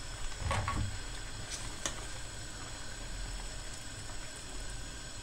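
Steel stockpot of blanched karalahana (collard greens) boiling, with water dripping off the leaves as they are lifted out with a wire skimmer. A few light clicks of the skimmer against the pot come in the first two seconds.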